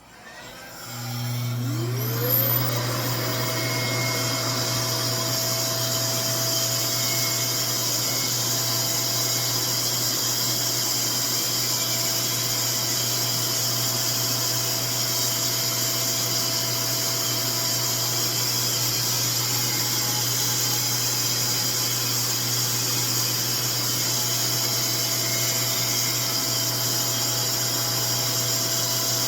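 RevAir reverse-air hair dryer switching on about a second in, its suction motor spinning up with a rising whine and then running steadily.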